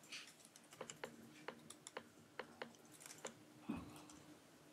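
Faint, scattered key clicks, about a dozen at irregular intervals, as votes are entered electronically, with a soft thump a little before the end.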